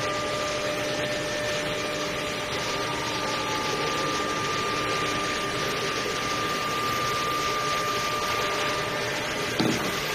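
Desktop CNC router's spindle running steadily with a whine over a rushing hiss as the bit carves a wooden workpiece turned on the rotary fourth axis. A single sharp click near the end.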